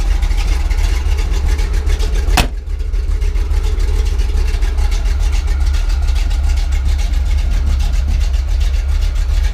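Chevrolet 5.7 L (350) small-block V8 with headers and a Flowmaster-type exhaust idling steadily with a deep low rumble. A single sharp click or knock cuts in about two and a half seconds in.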